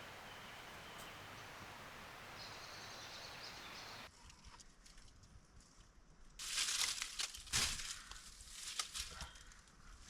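Steady outdoor background hiss, then after an abrupt change about four seconds in, several loud bursts of rustling and crunching.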